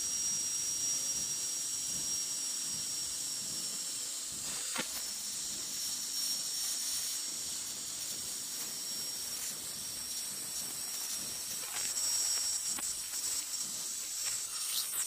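CNC plasma cutter torch cutting steel plate: the plasma arc gives a steady hiss with a thin high whine in it. There is a sharp tick about five seconds in.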